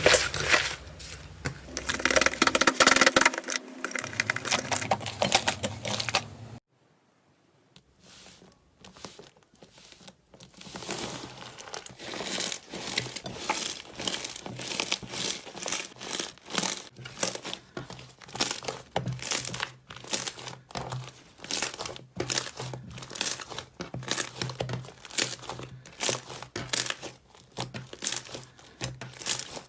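Slime being squeezed and worked by hand, a rapid run of wet crackling clicks and pops. About six and a half seconds in it drops to near silence for a second or so, then the crackling starts again.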